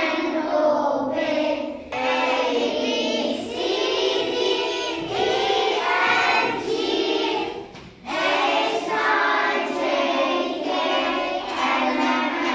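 Children's choir singing a song in Arabic, in phrases with brief pauses between them.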